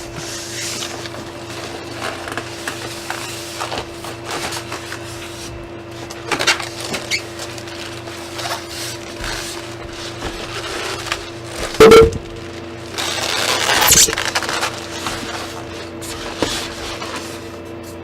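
Cardboard box and packing being handled as a computer case is unpacked: scattered rustles and knocks, a loud thump about twelve seconds in, then a second or so of scraping, over a steady hum.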